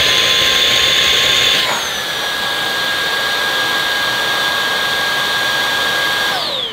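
Halo Capsule X cordless vacuum's motor running with a steady whine. About 1.7 s in it changes speed and runs a little quieter, then near the end it winds down with a falling whine as it stops.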